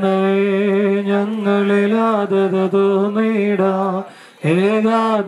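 Worshippers chanting a Malayalam liturgical prayer in unison, holding long notes on a nearly level pitch, with a brief break for breath about four seconds in.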